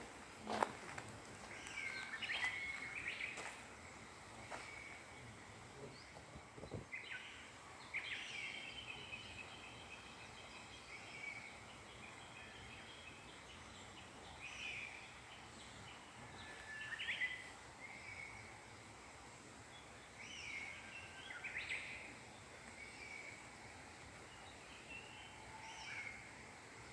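Small songbirds chirping and singing in short phrases, on and off, over a quiet outdoor background. There are a couple of sharp clicks in the first seconds.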